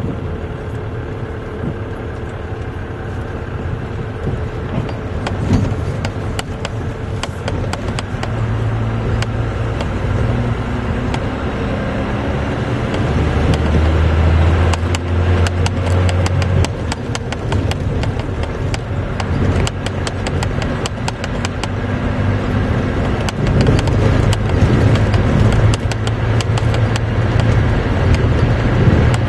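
Dodge Ram's 12-valve Cummins 5.9-litre inline-six turbo diesel pulling a heavy trailer load, heard from inside the cab, its engine note rising and falling. A lot of clicking and rattling runs over it through the middle.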